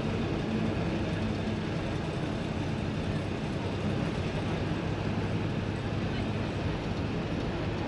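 Bus engine running steadily under a continuous rumble of road noise, with a low hum.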